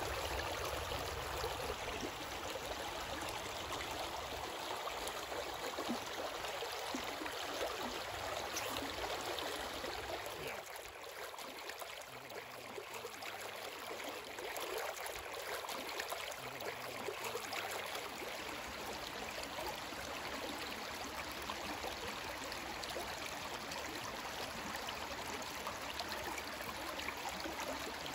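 A small, shallow creek running over rocks in riffles, a steady rushing babble. It dips in level briefly about eleven seconds in, then carries on.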